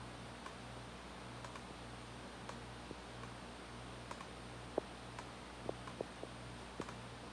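Faint clicking from a laptop being worked: scattered single clicks, several of them close together about five to seven seconds in. Under them runs a low hum that pulses about twice a second.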